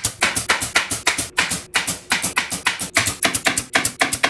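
Air-powered T50 staple gun firing in quick succession, a rapid string of sharp shots about six a second, driving staples through a sheepskin cover into plywood.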